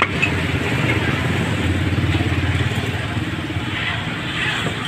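A motorbike engine running close by, a steady low rumble.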